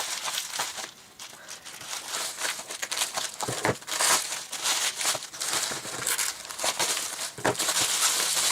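Packaging crinkling and rustling in irregular handfuls as items are dug out of a parcel and unwrapped, with sharp crackles now and then.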